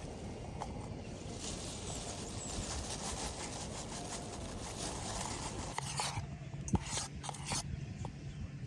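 Light clicks and knocks of camp cooking gear being handled, over a steady hiss; the clicks come in a short run about six seconds in.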